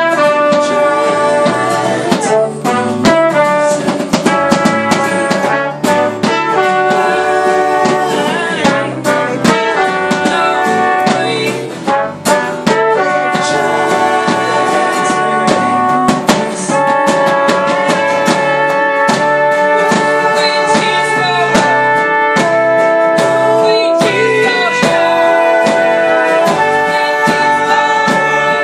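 A live acoustic band playing: two acoustic guitars strummed, with trumpet and trombone and several voices singing.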